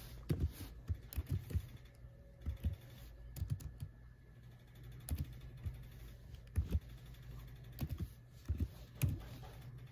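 Typing: light, irregular taps in short runs with pauses between them, as someone types and taps through a sign-in and a search.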